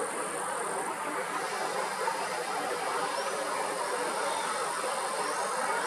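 Steady far-off engine noise, an even rumble without words that grows slightly louder.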